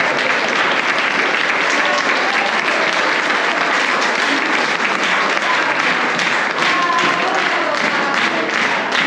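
Audience applauding steadily, with a few voices heard among the clapping.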